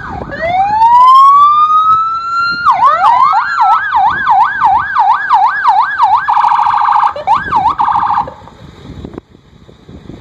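An emergency vehicle's electronic siren: a wail rising over about two seconds, then a fast yelp, switching to a very rapid warble and cutting off about eight seconds in.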